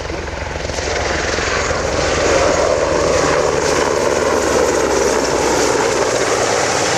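EH101 rescue helicopter's three-engine turbine whine and rotor chop, loud as it flies its display. The noise swells about a second in, with a falling whine as it passes.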